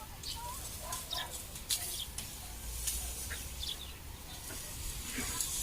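Outdoor rural ambience with scattered short bird chirps over a low steady background rumble.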